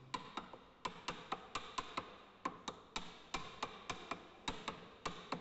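Wooden mallet tapping on a lathe's cast-iron gap-bed piece to seat it on its double dowel pins: a steady run of light, sharp taps, about four a second.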